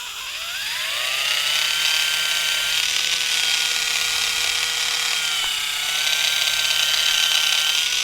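A small electric motor whirring: it spins up over about the first second, then runs with a steady whine whose pitch sags a little around the middle.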